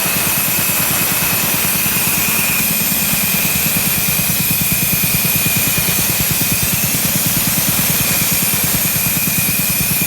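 Ingersoll Rand BAP-10-TV3 high-pressure breathing air compressor running, a fast steady pulsing of its pistons with a steady whine and air hiss over it. The owner says the unit builds only a little pressure, not even close to 3,000 psi.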